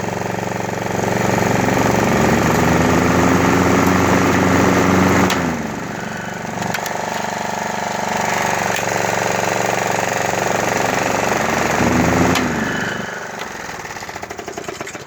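Toro walk-behind lawn mower engine running as the blade clutch is engaged twice: each time the pitch climbs slowly over a few seconds as the blade spins up, then drops off sharply. The slow spin-up is the fault the owner complains of. Near the end the sound dies away unevenly.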